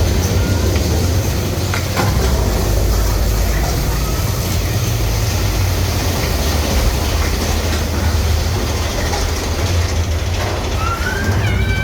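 Mine-train roller coaster cars running along the track, a steady heavy rumble and clatter heard from aboard the train, with a few sharp clacks. Near the end come a few short rising squeals.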